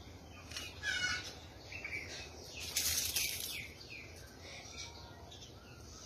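Birds calling in the trees: repeated short chirps, with a louder stacked call about a second in. About three seconds in there is a brief, louder burst of noise.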